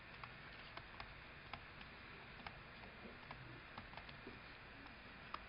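Faint, irregular light clicks and taps of a stylus on a tablet screen as words are handwritten, over a low room hiss.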